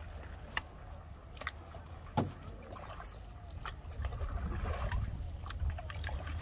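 Canoe paddle strokes: a single-bladed paddle dipping and pulling through lake water, with a few sharp knocks, the sharpest about two seconds in. A low rumble comes in about four seconds in.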